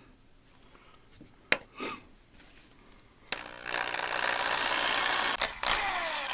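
Electric drill starting up about halfway through and boring with a larger bit into a broken steel bolt snapped off flush in a diesel cylinder head. It runs loud and steady with a motor whine, and squealing tones slide downward near the end.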